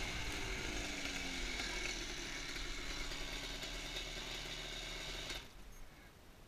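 Yamaha quad's engine dropping off from revs and settling to a steady idle, then falling silent about five seconds in.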